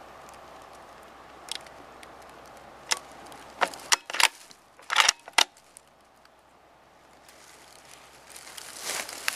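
A string of sharp clicks and knocks, the loudest bunched between about three and five and a half seconds in, then a rustling that builds near the end.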